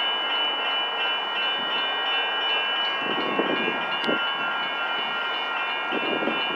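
Railroad crossing warning bells ringing steadily in a fast, even repeat while the crossing signals are active and the gates are down, warning of an approaching train. A low, uneven rumble joins in about three seconds in.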